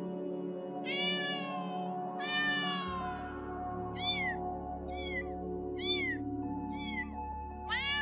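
Kitten meowing: two longer meows falling in pitch, then five short, high mews about a second apart.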